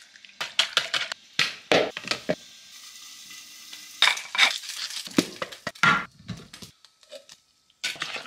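Food-prep sounds at plastic mixing bowls: an egg cracked against the bowl, a wooden pepper grinder turning about four seconds in, and a spoon stirring corn fritter batter near the end, heard as runs of short clicks, crunches and scrapes with a quieter pause between.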